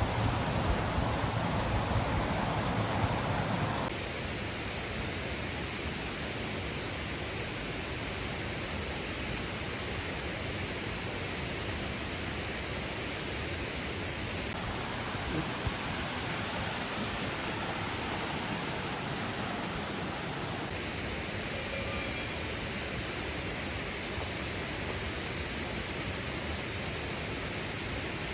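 Waterfall rushing: a steady, even wash of falling water. It is louder and deeper for the first four seconds, then settles to a steady, lower level.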